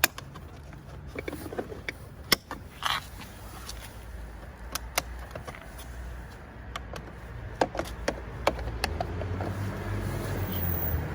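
Plastic clicks, knocks and a short scrape as a wing mirror housing is being prised open with a trim opening tool. A low rumble builds toward the end.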